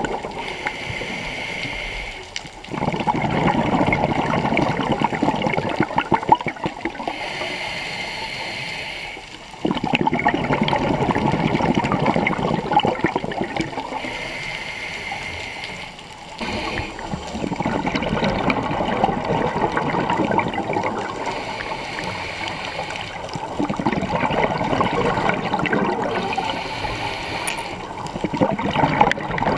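Scuba regulator breathing heard from the diver holding the camera, in a slow cycle of about seven seconds. Each breath in is a short hiss through the regulator, and each breath out is a long rush of bubbles. About four breaths are heard.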